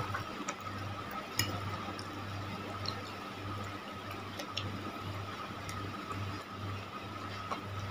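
Metal spoon clicking against a plate a few times while scooping chewy cilor and egg macaroni, with quiet chewing, over a steady low hum.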